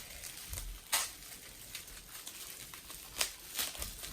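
Plastic slime container and its wrapping being handled and opened: a few sharp clicks and crinkles, one about a second in and two a little after three seconds in, over a light hiss.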